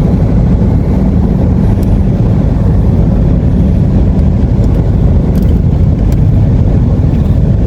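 Steady road noise of a car cruising along a highway, heard from inside the cabin: an even, loud rumble of tyres and engine.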